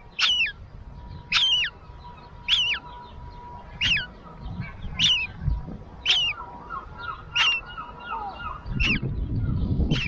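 Baby gull chick peeping: a high, sharp, wavering call repeated about once a second. Wind rumbles on the microphone and swells near the end.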